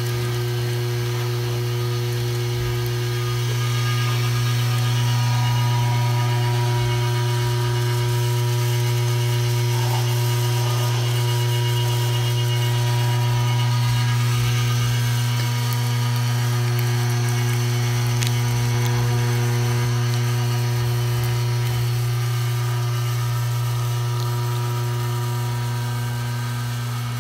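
A #12 electric meat grinder running steadily under load, its motor giving a constant hum with steady higher tones as deer trimmings feed through the auger and out the coarse grinding plate.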